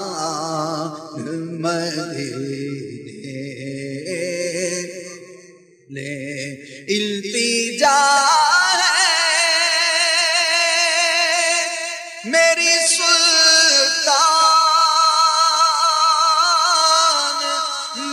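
A man's voice singing a naat (Urdu devotional poem), drawing out long, wavering notes rather than clear words. There is a short break about six seconds in, after which the notes come louder and higher.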